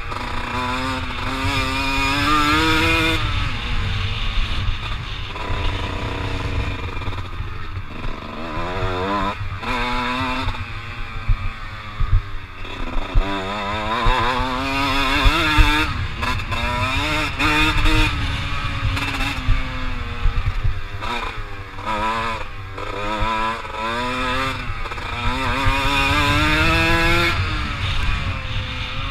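Kawasaki KX125 two-stroke single-cylinder engine revving hard under load on a motocross track. Its pitch climbs in long rising sweeps and falls away again, about nine times, as the rider shifts gears and rolls off the throttle.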